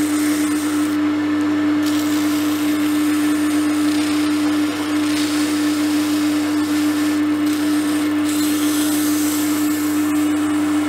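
Steady whine of an electric motor spinning a steel rod, with a hiss of abrasive cloth rubbing on the turning metal that swells and eases as the pressure changes.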